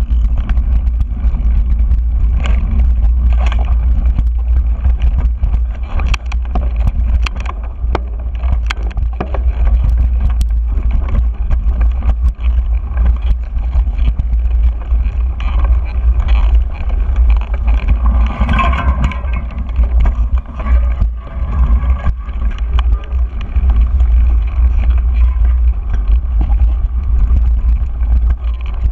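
Wind rumbling on a handlebar-mounted GoPro's microphone as a mountain bike rolls down a dirt singletrack, with the bike's clicks and rattles over bumps in the trail.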